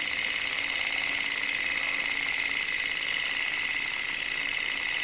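Film projector running: a steady, rapid mechanical clatter with a faint steady tone underneath.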